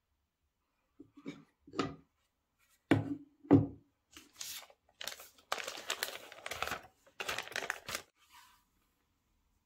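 Packaging being handled and opened: a few light knocks, then two sharp thuds about half a second apart, followed by several seconds of tearing and crinkling.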